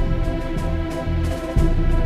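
Background music: sustained synth-like chords over a low bass note that is struck again about every two seconds, once near the end.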